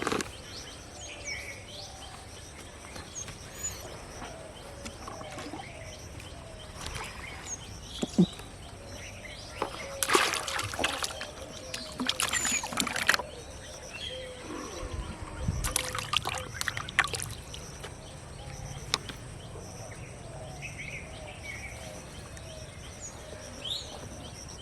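Water splashing in three short bursts, about ten, twelve and sixteen seconds in, with birds chirping faintly throughout.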